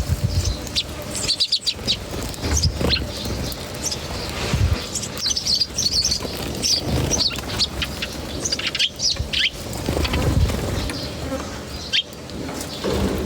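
Small birds chirping repeatedly in short high calls, with bursts of fluttering wings and low muffled thumps every couple of seconds.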